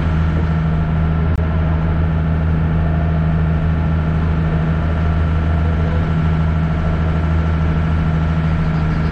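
Engine of a river water bus under way: a steady low drone with an even hum.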